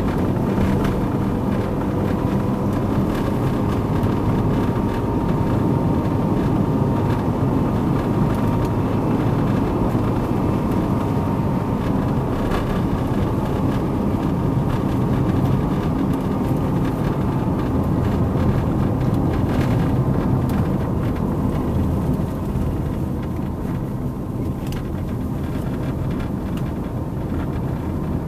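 Car driving steadily along a road, a constant low rumble of engine and tyres, with a faint whine through the first half that fades out about halfway through.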